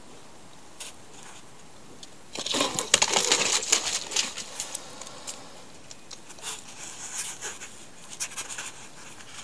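A house cat charging a black bear, with a sudden burst of scuffling, crackling and scraping on dry, pine-cone-strewn ground about two seconds in that lasts a couple of seconds, then scattered clicks and rustles.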